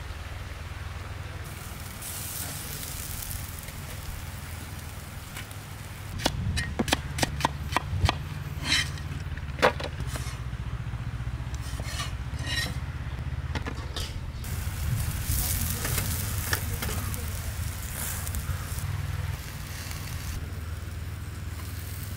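Duck on a metal skewer roasting over glowing embers, sizzling, with a run of sharp crackles about six to ten seconds in, over a steady low rumble.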